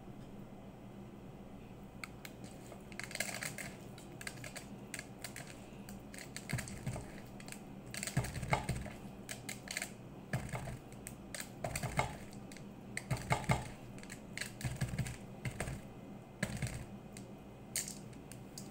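Irregular clicks and taps of vegetables being stuffed by hand: fingers scooping rice filling from a stainless steel bowl and packing stuffed zucchini and peppers into a pot, starting about two seconds in. A steady low hum runs underneath.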